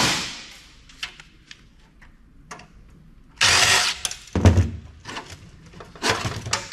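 Sheet-metal parts of an old desktop PC case being handled by hand: a knock at the start, two scraping, clattering bursts about three and a half and six seconds in, and a dull thud between them.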